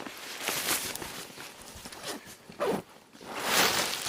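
Rustling and scuffing handling noise close to the microphone: several short swishes, the longest and loudest about three and a half seconds in, like clothing or a bag being moved.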